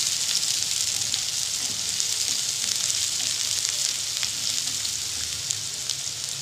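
Chopped onion sizzling in hot cooking oil in a nonstick frying pan as it softens: a steady hiss with small crackles, and a plastic spatula stirring it through the pan.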